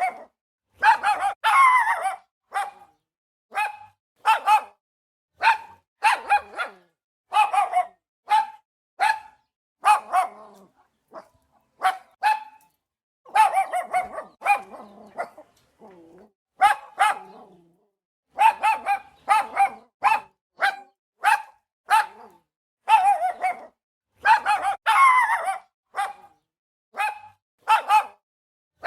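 Dog barking over and over: short barks about once a second, some in quick twos and threes.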